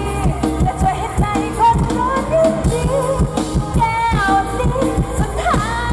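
A woman singing into a microphone over an amplified live band with a steady drum beat.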